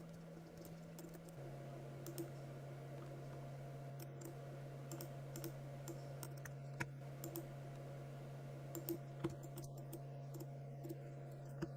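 Faint, irregular clicks of a computer mouse and keyboard, over a steady low electrical hum.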